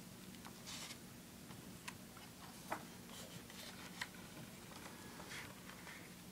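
Large hardcover book being opened and its pages handled: faint paper rustles and soft ticks and taps, the sharpest a little under 3 seconds in and again about 4 seconds in, over a low steady hum.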